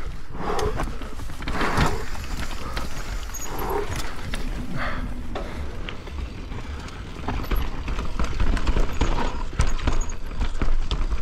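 Propain Spindrift enduro mountain bike descending a rough trail: tyres rumbling over dirt and roots, with the chain and frame clattering and knocking. The clatter grows louder and busier over the last few seconds.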